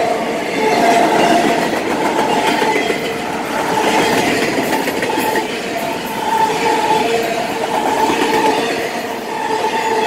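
Freight train's autorack cars rolling past at close range: a continuous rumble and clatter of wheels on the rails, with a high tone that comes and goes.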